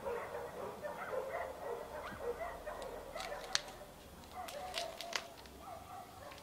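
Faint, short, wavering animal cries, with a few sharp clicks about three and a half and five seconds in.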